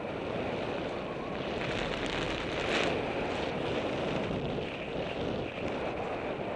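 Wind rushing over a camera microphone on a bicycle coasting downhill, mixed with the rolling noise of the tyres on rough asphalt; the hiss swells for a couple of seconds in the middle.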